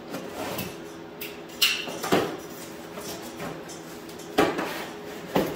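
Box cutter slicing through the packing tape and cardboard of a long shipping box, with scraping and about four sharp knocks as the box is handled.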